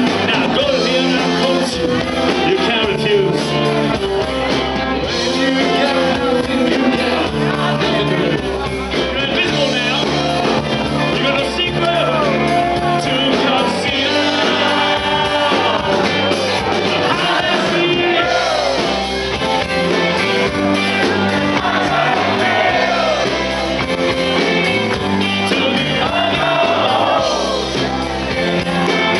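Live rock band playing: a male singer over electric guitars, bass guitar and drums.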